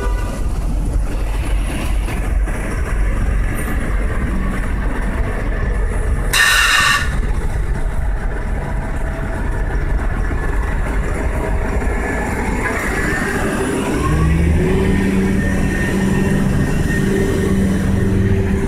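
Busy city street traffic, with a city bus passing close by. About six seconds in there is a short high-pitched squeal, and from about fourteen seconds a deeper, steady engine drone from a heavy vehicle.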